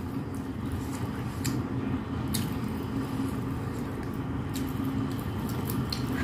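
Close mouth sounds of someone chewing a mouthful of rice with fried anchovy sambal, with small wet clicks scattered through, over a steady low hum.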